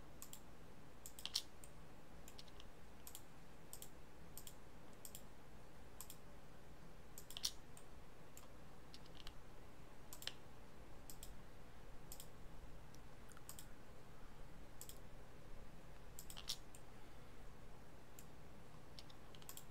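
Computer mouse clicking: single button clicks at an irregular pace, about one a second, as faces are selected one by one. A faint steady low hum sits behind them.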